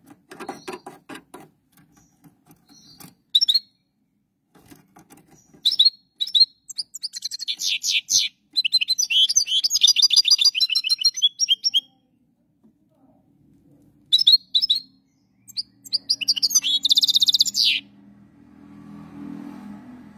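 European goldfinch singing: bursts of rapid, high twittering song, with the longest run through the middle and another a few seconds before the end. A short rustle comes at the start, and a faint low hum near the end.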